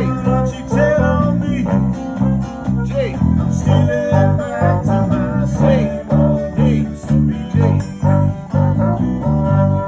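A small live band playing: a trombone and a saxophone as the horn section, over electric and acoustic guitars and a steady bass line.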